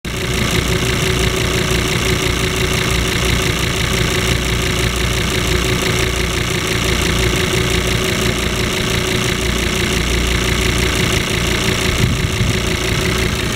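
Volvo 2.4-litre D5 five-cylinder turbodiesel idling steadily, with an even diesel clatter.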